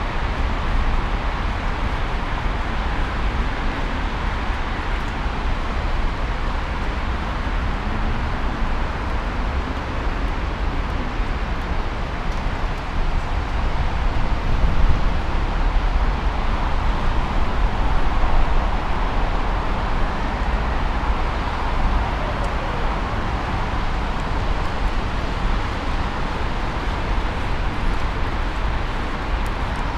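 Steady city street traffic: cars driving along a busy road, a constant low rumble with tyre hiss.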